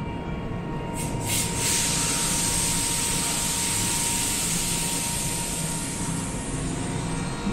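Compressed air released from a stationary Belgian electric multiple-unit train just after its doors close: a sharp burst about a second in, then a long hiss that fades slowly, over the steady low hum of the standing train.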